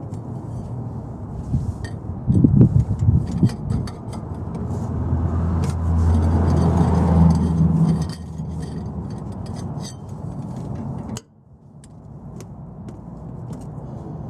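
Clicks and metallic clinks of hand tools working the steering damper's bolts, with a cluster of louder knocks about two to four seconds in, over a low rumble. A low hum swells in the middle and stops abruptly about eight seconds in.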